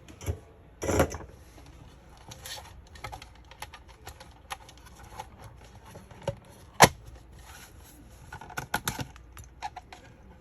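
Scattered small clicks and taps of hands and tools working on the router's wiring and plastic casing, with a louder knock about a second in and a sharp click near seven seconds in.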